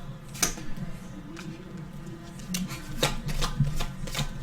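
Football trading cards being handled and flipped through by hand: a series of short, sharp clicks and snaps, a few at first and more of them close together in the second half.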